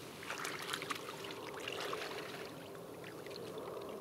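Water splashing and trickling as a mesh keepnet is dunked and set in shallow river water, the splashes mostly in the first two seconds.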